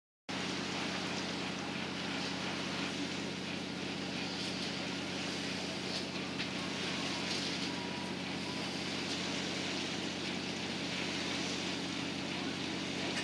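A tour boat's engine running steadily under way, a constant low hum, with the rush of wind and water passing the hull.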